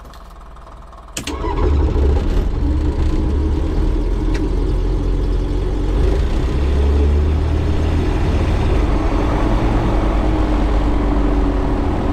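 Single-engine light aircraft's piston engine being started: it catches about a second in and settles into a steady idle with the propeller turning, heard from inside the cockpit.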